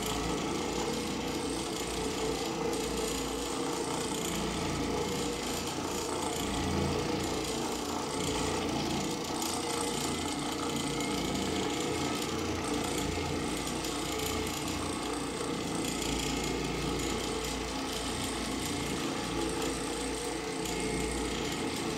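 Oreck Orbiter orbital floor machine running steadily, its pad scrubbing across carpet, with an even mechanical hum throughout.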